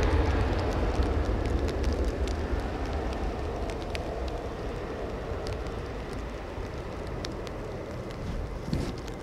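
Jet airliner engine noise fading away into a low rumble, over steady rain with many scattered light ticks of raindrops.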